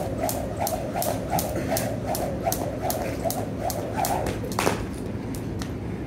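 Jump rope slapping the floor in a steady skipping rhythm, about three turns a second. The rhythm stops about four and a half seconds in with a brief falling sound, and only a few scattered, weaker strokes follow.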